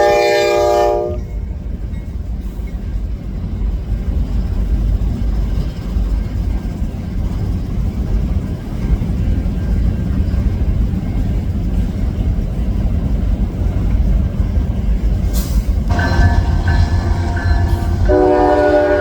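Locomotive horn sounding a chord of several notes, cutting off about a second in, over the steady low rumble of a train on the move. The horn sounds again near the end, first faintly and then at full strength.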